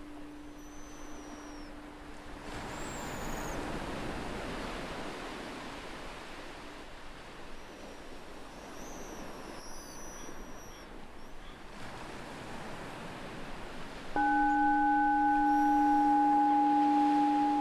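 Ocean waves washing with seagulls calling now and then. A meditation bell's fading hum dies away in the first few seconds. About fourteen seconds in, the bell is struck again and rings loud and steady, a low hum with higher overtones.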